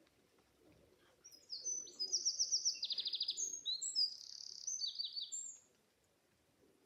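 A small songbird singing one high-pitched song of rapid trills and quick notes, lasting about four seconds, with pigeons cooing faintly underneath.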